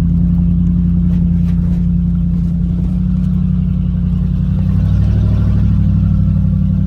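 Hemi V8 of a third-generation Dodge Ram pickup running at steady revs while crawling over a dirt trail, heard from inside the cab, with a few light knocks and rattles.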